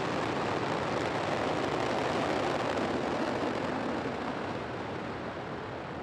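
Falcon 9 first stage's nine Merlin engines running just after liftoff: a loud, steady, rushing noise that eases off slightly over the last two seconds as the rocket climbs away.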